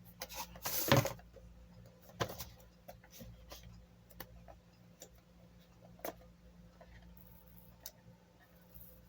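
A small product box being opened and its contents handled: a loud rustle about a second in, then scattered light clicks and taps.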